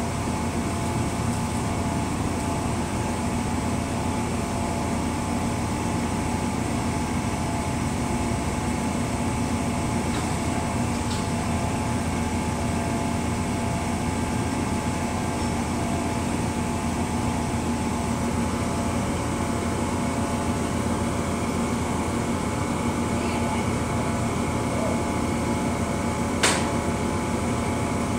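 A standing Amtrak Northeast Regional train idling, giving a steady mechanical hum with several steady tones. There is a single sharp click near the end.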